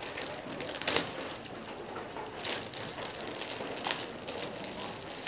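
Crumpled packaging wrap crinkling and rustling as it is pulled apart by hand, with three sharper crackles.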